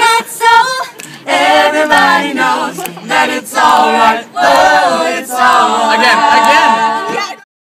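Voices singing a cappella, holding long notes over several phrases, then stopping abruptly shortly before the end.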